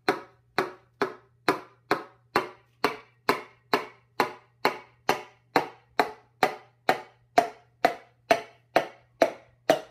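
Wooden hammer handle tapping a piston crown in an even run of sharp knocks, about two a second, driving the ringed piston the rest of the way down its cylinder bore in a Jeep inline-six stroker block so the connecting rod seats on the crankshaft.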